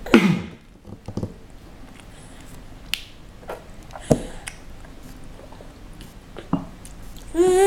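A young child eating clementine: scattered wet mouth smacks and clicks, a few seconds apart. Near the end she lets out a short vocal sound that rises and falls in pitch.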